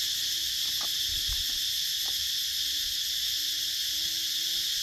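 A steady, high-pitched buzzing of an insect chorus. A faint, wavering low tone and a few soft clicks sit underneath.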